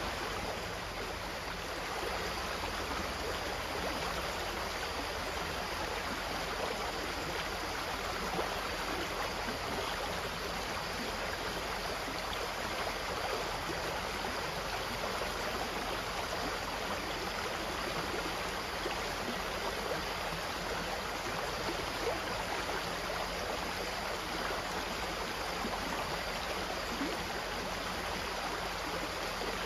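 Steady, even rush of a flowing stream.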